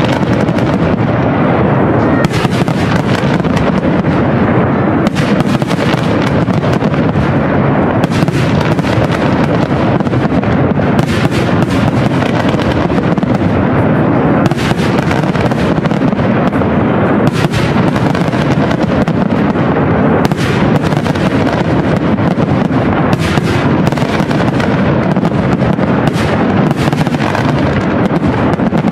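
Aerial fireworks display: shells bursting in a dense, continuous barrage of overlapping bangs, many sharp reports every second with no pause.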